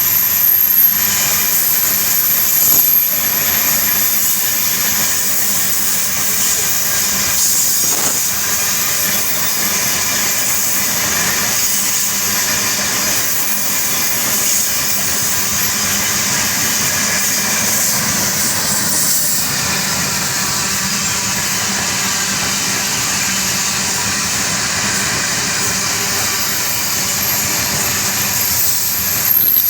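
Iron-ore train wagons rolling past on the rails: a steady hiss of steel wheels on track, even in level throughout.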